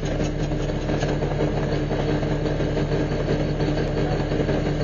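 Garbage truck engine running steadily, heard from inside the cab with an even low hum.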